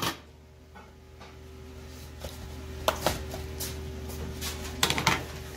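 Scattered light clicks and taps of containers and utensils handled on a stainless-steel food-prep counter, with a cluster of them near the end, over a steady low hum.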